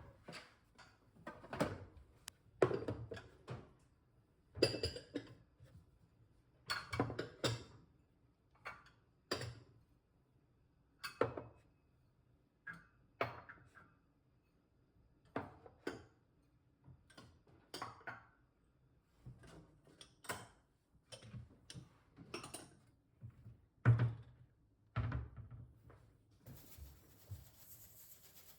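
Irregular knocks and clatter of dishes and kitchen things being handled and set down, one every second or two. A steady hiss starts near the end.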